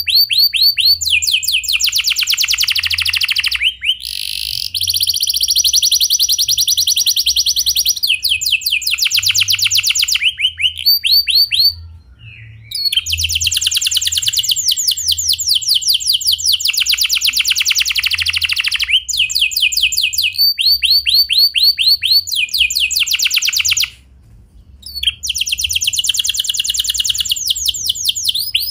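Domestic canary singing a long, clear rolling song: phrases of fast repeated trilled notes, each phrase switching to a new note type every second or two, with two short breaks.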